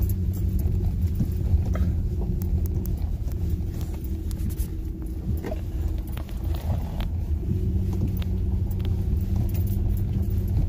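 Honda Ridgeline's V6 engine and tyres heard from inside the cab while driving slowly over a rough, snowy dirt track: a steady low rumble and engine hum, with scattered small clicks and knocks over the bumps.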